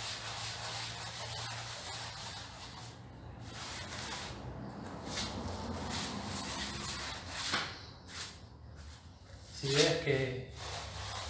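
Foam sponge float rubbed over a fresh cement-and-lime render patch in repeated strokes, smoothing the damp surface with lime water for its final finish.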